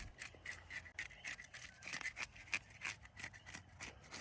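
Fish scaler scraping scales off a whole fish in rapid, repeated strokes, about five a second.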